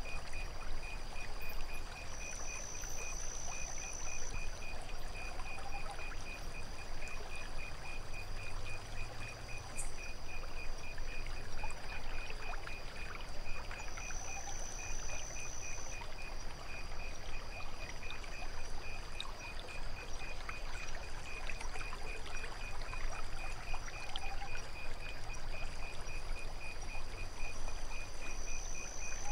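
Night ambience of lake water gently trickling and lapping, with a cricket chirping in rapid, even pulses throughout and a steady high insect trill above it. A second, higher trill comes in for about two seconds a few times.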